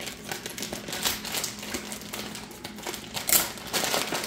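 Plastic food packaging crinkling and rustling as a pack of pepperoni is handled, growing louder about three seconds in.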